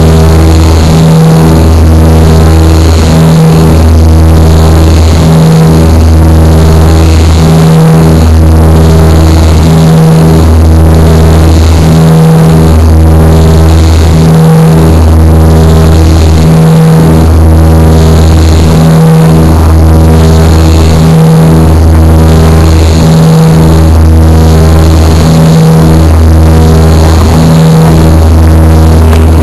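ATR 42-300 turboprop's Pratt & Whitney PW120 engines and four-blade propellers heard loud from inside the cabin during the climb after takeoff, a steady low drone that pulses evenly about once every second and a half, over a hiss of airflow.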